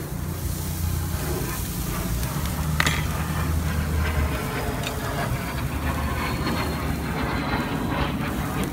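Steaks sizzling on the hot grate of a charcoal kettle grill, a steady hiss starting as the meat goes down. A low rumble sits underneath for the first four seconds or so, and there is one sharp click about three seconds in.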